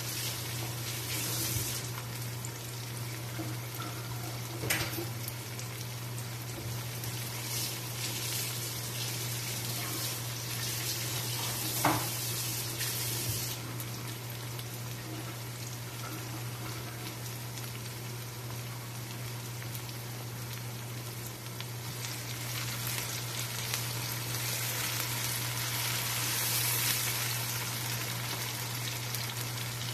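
Sliced onions sizzling steadily in hot oil in a wok, with a steady low hum underneath. Two sharp clicks come about 5 and 12 seconds in, and near the end the sizzle grows louder as the onions are stirred with a spatula.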